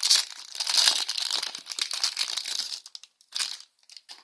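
Small wrapper crinkling and rustling as it is handled and torn open to unpack a toy. It dies down about three seconds in, with one more brief rustle soon after.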